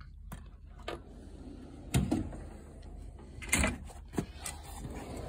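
Tool chest drawers sliding shut and open on their runners, with two louder knocks about two and three and a half seconds in and a smaller click soon after.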